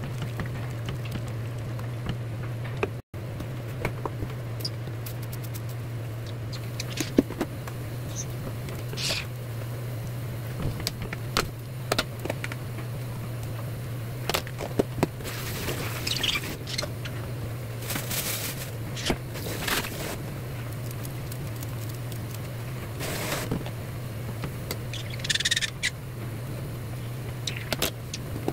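A pot of beef and bean-sprout soup boiling on a gas stove, with a silicone spatula stirring it. Scattered small clicks and pops and a few short scraping swishes play over a steady low hum.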